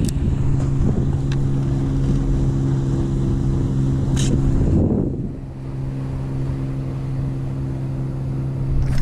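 Boat motor running with a steady hum, easing off briefly a little past halfway and then picking up again, with wind rumbling on the microphone.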